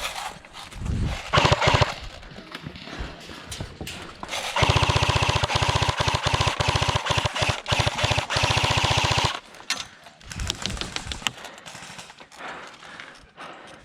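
Airsoft electric rifle firing on full auto: a short burst about a second in, then one long burst of about five seconds, the gearbox buzzing steadily under a rapid string of pops.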